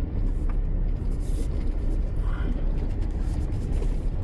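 Steady low rumble of a vehicle driving, road and engine noise heard from inside the vehicle.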